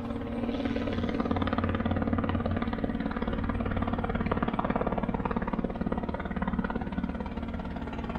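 Robinson R22 Beta helicopter approaching in flight, its two-blade main rotor giving a rapid, steady chop.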